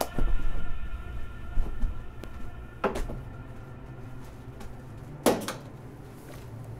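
Handling noises of a person moving about a small room: knocks and low thuds in the first couple of seconds, then two brief scraping sounds about three and five seconds in, over a low steady hum.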